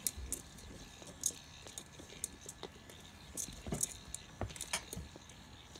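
A Shih Tzu puppy biting and pawing at a plastic Weazel Ball toy: irregular clicks and taps of teeth on the hard plastic shell, with a few duller knocks.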